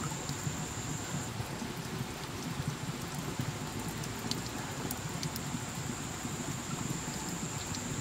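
Water dripping onto wet rock and leaves: a steady patter with scattered sharper drops. A thin high steady whine drops out about a second in and returns about five seconds in.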